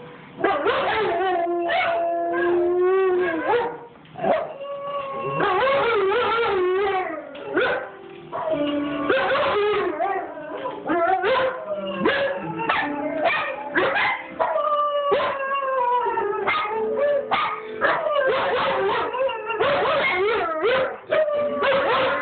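Dogs howling along to each other, long wavering howls overlapping with yips and whimpers: a German Shepherd singing along to the recorded howls of a singing dog played from a video, with some of that video's music.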